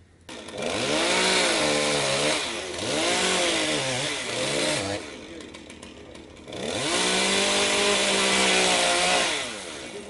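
Two-stroke chainsaw revved up and let back down twice. The first run lasts about four and a half seconds with a dip in the middle, then the saw drops back toward idle. A second run of about three seconds follows, and near the end it falls back to idle.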